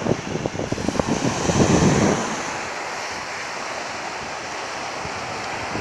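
Surf washing onto a sandy beach, a steady rushing hiss. Wind rumbles on the microphone through the first two seconds, the loudest part.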